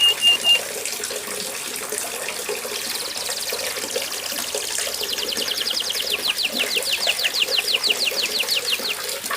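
A domestic canary singing over a steady rain recording. A few short whistled notes come at the start, then a fast trill from about three seconds in, which turns into a rapid run of downward-sweeping notes that grows louder toward the end.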